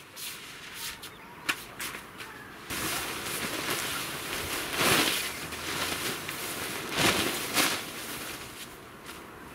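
Rustling and crinkling of a plastic-backed rug being unfolded and shaken out over a tent's groundsheet, with louder swishes as it is flapped, about halfway through and again near the two-thirds mark.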